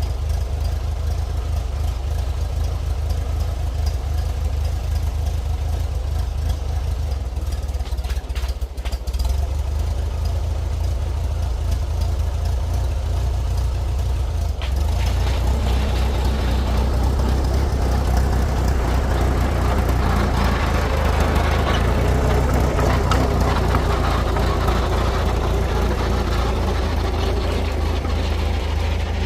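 1952 Oliver OC3 crawler's four-cylinder engine running steadily, growing louder and fuller about halfway through as the little dozer works.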